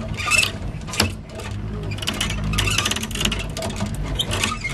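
Hand-cranked boat trailer winch being worked, its ratchet clicking in uneven runs with a sharp knock about a second in, over a low steady rumble.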